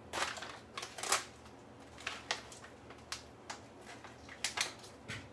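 Paper bag of pearl couscous being handled and opened: a series of short, irregular crinkles and rustles.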